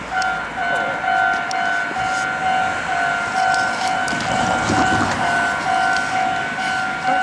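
Japanese level-crossing alarm starting to ring and sounding its electronic bell in a steady run of short, even, repeated dings, warning of an approaching train. A brief rush of noise comes about four to five seconds in.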